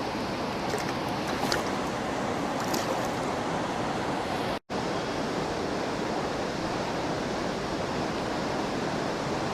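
Steady rush of flowing river water, with an instant of silence about four and a half seconds in.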